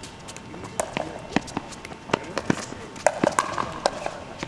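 Pickleball paddles striking the hollow plastic ball in rally play: a string of sharp pops at irregular intervals, about nine in a few seconds.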